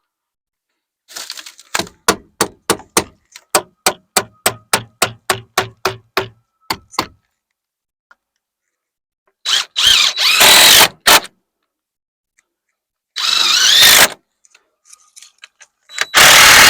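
A hammer driving a nail into wood framing, about sixteen blows at roughly three a second. Then a power drill driving screws in three short runs of a second or so each, its whine bending in pitch.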